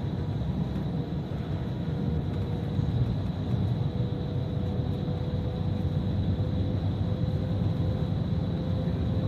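Bus engine and road noise heard from inside the passenger cabin: a steady low rumble with a faint constant whine above it.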